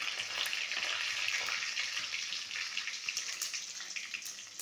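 Hot oil sizzling in a kadai as a tempering of mustard seeds, cumin and dal fries, with light crackling pops of the spluttering seeds. The sizzle eases slightly toward the end.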